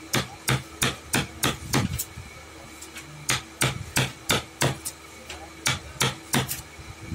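Hammer blows in woodwork: sharp strikes about three a second, in runs broken by short pauses.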